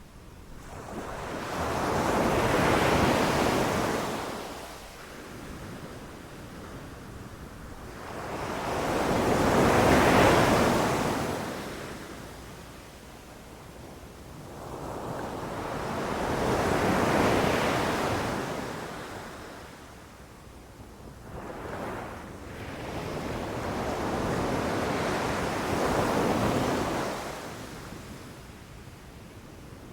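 Ocean surf breaking on a beach: waves swell up and wash out about every seven seconds, four surges in all, the last one longer and in two parts.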